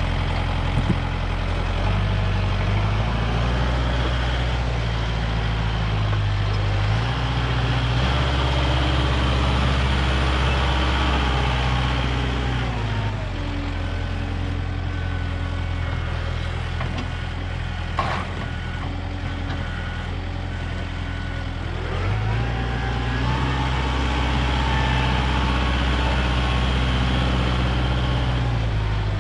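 Diesel tractor engine running a firewood saw, its note dropping and recovering several times as the saw comes under load and frees up. A single sharp knock about two-thirds of the way through.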